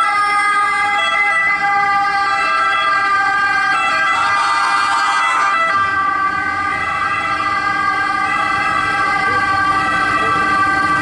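Several emergency-vehicle sirens of a passing ambulance convoy sounding together in a steady, overlapping wail. About four seconds in, a rougher, noisier tone joins for a second and a half.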